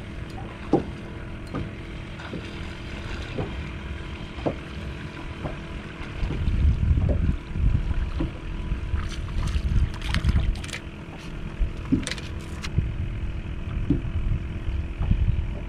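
Wind and water noise around a small boat, an uneven low rumble that swells about six seconds in, with scattered clicks and knocks from rod, reel and tackle as a fish is reeled in and handled. A run of sharper clicks comes about ten to thirteen seconds in.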